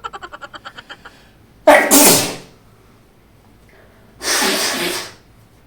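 A person sneezing twice. The first sneeze comes suddenly just under two seconds in and is the louder; the second follows about two and a half seconds later.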